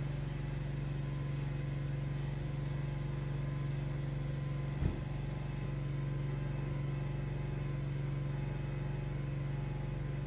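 A steady low machine hum with a few fainter higher tones, broken once by a short knock about five seconds in.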